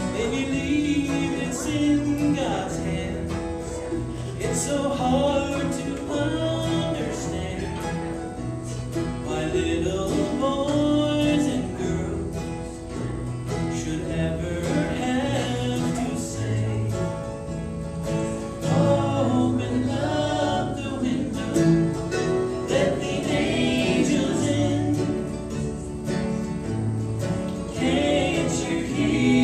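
Bluegrass band playing live: fiddle, acoustic guitars, mandolin and banjo, with voices singing over them.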